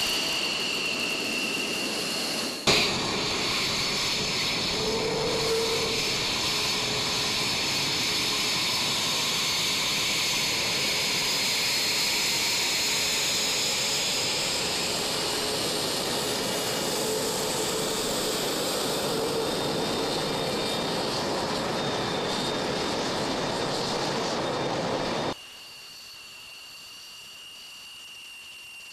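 Fighter jet engines taxiing, a steady loud jet noise with a high whine. At the start the whine falls in pitch. There is an abrupt change a few seconds in, and near the end the sound drops suddenly to a quieter whine.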